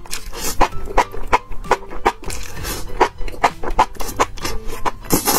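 Close-up eating sounds of spicy enoki mushrooms: wet slurping and chewing as strands are drawn in with chopsticks, a quick, uneven run of smacking clicks.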